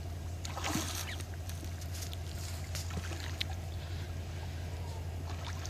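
Creek water sloshing and splashing, with scattered short knocks and splashes, over a steady low rumble.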